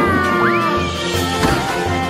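Film score music with steady held notes. About half a second in, a short gliding sound rises and then falls in pitch, and a brief knock comes near the end.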